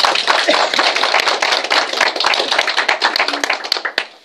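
A group of children clapping in applause for a correctly spelled word, a dense patter of hand claps that stops abruptly near the end.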